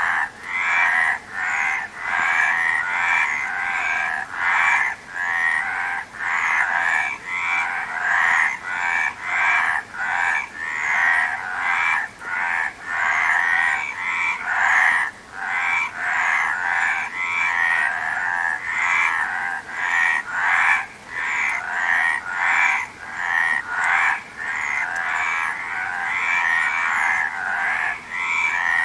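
A chorus of frogs croaking, many calls overlapping without pause, swelling and dipping briefly every second or two.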